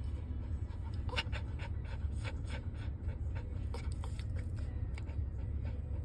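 Small white dog panting in quick runs of short breaths, about three or four a second, over the steady low rumble of a car cabin.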